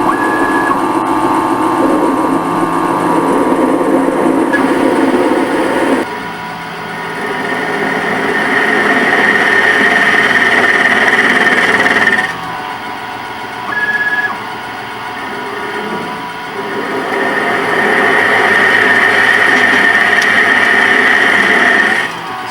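CNC lathe running a turning program: the spindle motor runs steadily at about 1000 RPM while the stepper-driven carriage makes its passes. A high whine rises and holds for several seconds twice, each time stopping abruptly, with short beeps between.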